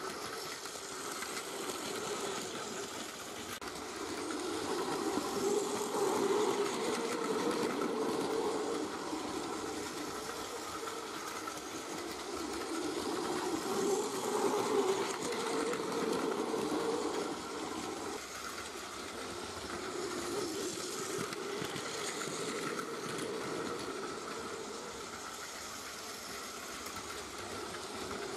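Plarail toy train (E233 series 6000 Yokohama Line model, new-mechanism motor unit) running on plastic track, its small battery motor and gears whirring steadily. The sound swells louder as the train passes close, about 6 and 14 seconds in.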